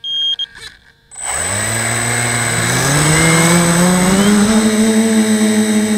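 Tricopter's brushless motors and propellers spinning up from rest about a second in, their pitch rising steadily as the throttle comes up for takeoff, with a constant high electronic whine on top. A short electronic beep sounds at the very start.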